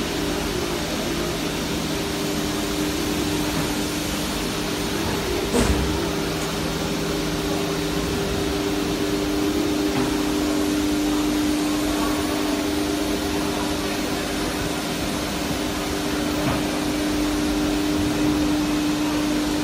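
Swift CA20-9 CNC nesting router cutting a wood panel: the spindle runs with a steady whine over a steady rushing hiss, with one short knock about five and a half seconds in.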